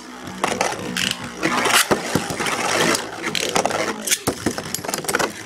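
Several metal-wheeled Beyblade spinning tops whirring and scraping across a plastic stadium floor, with repeated sharp clacks as they hit each other and the stadium wall.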